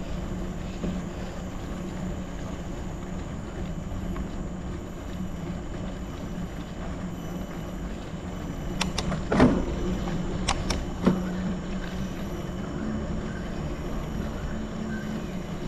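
Gravel bike rolling over rough off-road ground: steady rolling noise, with a few sharp knocks and rattles about nine to eleven seconds in, the loudest just past halfway.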